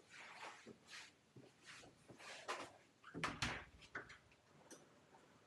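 Faint rustles and small knocks of things being handled, with one louder knock a little after three seconds in.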